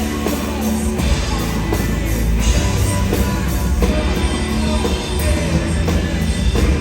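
Live rock band playing loudly: guitar, bass and drums with a heavy low end.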